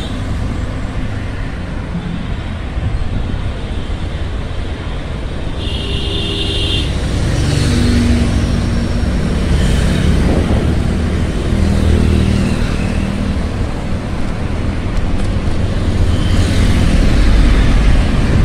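Night city road traffic heard from a moving bicycle: engines of passing cars and motorbikes over a steady low rumble. A brief high-pitched horn-like beep sounds about six seconds in.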